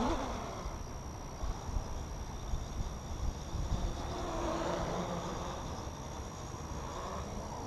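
Raven 310 quadcopter's Sunnysky X2212 1400kv brushless motors and propellers buzzing, the pitch sweeping up and down several times as the throttle changes. There is low wind rumble on the onboard camera's microphone.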